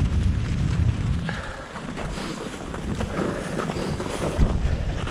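Wind buffeting the microphone in uneven low gusts. It eases for a couple of seconds about a second and a half in, then picks up again near the end.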